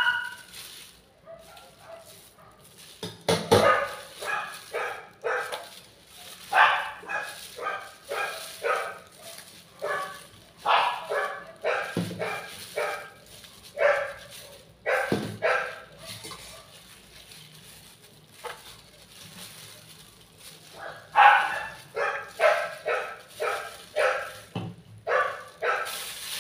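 Dogs barking in runs of short barks, several a second, with pauses between the runs and the longest lull around the middle. They bark while their food is being dished up.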